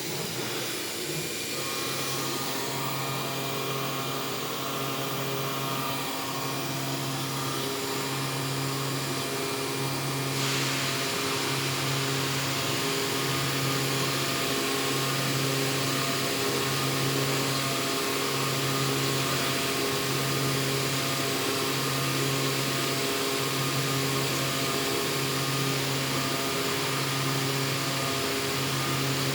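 CNC machine running while cutting a screw gear: a steady mechanical hum that swells and fades in a regular cycle about every one and a half to two seconds. A broad hiss joins about ten seconds in.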